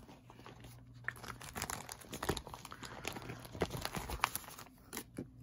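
Irregular crinkling and crackling of plastic as packaged nail polish strip sets are handled and slid into clear plastic binder sleeves.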